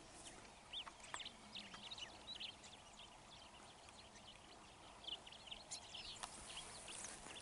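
Faint chirps and short calls of small birds, scattered irregularly over a quiet outdoor background.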